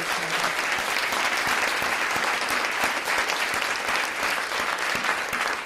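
Audience applauding in a large hall, a steady clapping from many hands that begins to thin out near the end.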